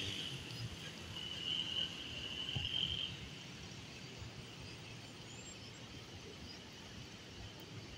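An insect's steady high-pitched trill, louder for the first three seconds and then fainter, over a low background hiss.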